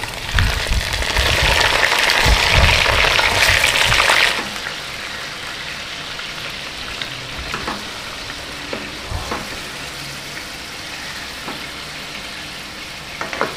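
Raw mutton pieces sizzling in hot ghee with fried onions. The sizzle is loud for about the first four seconds after the meat goes in, then settles to a quieter steady frying sizzle with a few light clicks from stirring.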